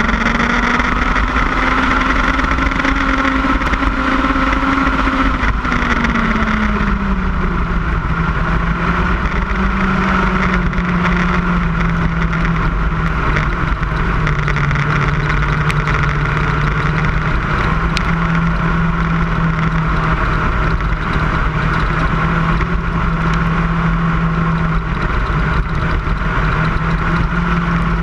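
Lightning sprint race car engine running at high revs under wide noise: the engine note holds high, drops about six seconds in, then stays steady with small shifts in pitch.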